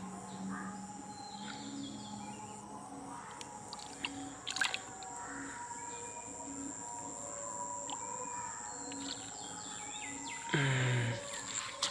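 Quiet outdoor background with a steady high insect-like tone and soft low calls repeating about once a second. A sharp splash or slap of a hand in shallow water comes about four and a half seconds in, as the fish is grabbed. A brief low sound falling in pitch follows near the end.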